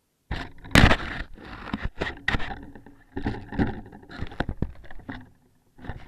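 Irregular knocks, rubs and scrapes right on an RC car's onboard camera microphone as the overturned car is handled and snow brushes over it, the loudest knock about a second in.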